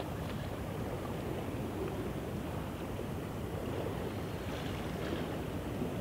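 Steady wind rumble on the microphone, with the sea washing against the pier wall.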